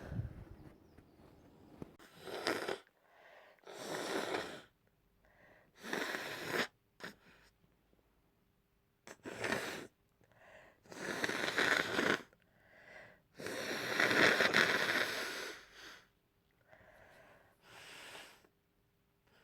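A person with a head cold blowing a congested nose into a tissue: a series of about seven blows with short pauses between them. The longest and loudest blows come about two thirds of the way through.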